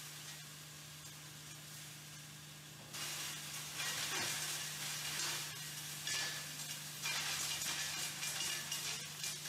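Electric charcoal crusher running: a steady low hum under a gritty crackle of charcoal being crushed and pouring out. The crackle gets louder about three seconds in and then comes in surges.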